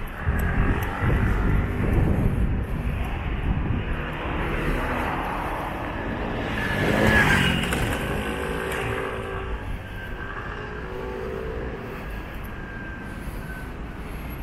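Street traffic: cars driving past, one passing close and loudest about seven seconds in.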